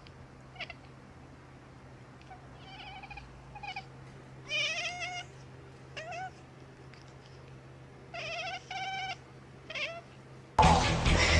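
A cat meowing in short, high-pitched calls, about seven of them, over a faint steady hum. Loud music cuts in near the end.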